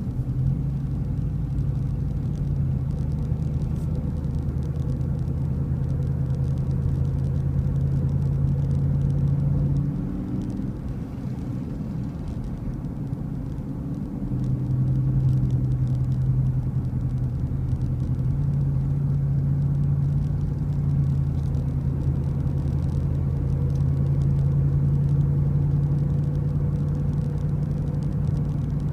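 Engine drone and road noise of a vehicle driving along, a steady low hum. It eases off for a few seconds about ten seconds in, then picks up again.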